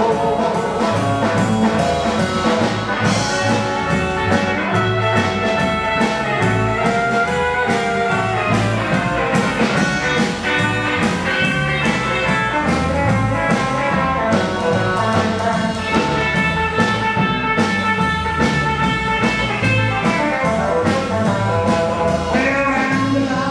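Rockabilly band playing an instrumental break with no vocals: electric guitar over bass and a drum kit keeping a steady beat.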